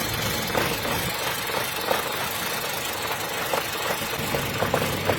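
Car engine idling roughly: a steady running sound broken by irregular, uneven knocks every second or so. This is the stumbling of a rough idle, in which one or more cylinders is not firing evenly.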